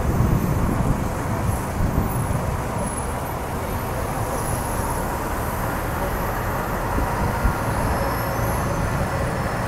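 Street traffic with a New Flyer D60HF articulated diesel bus pulling away; a steady low roar, a little louder in the first second as a car passes close.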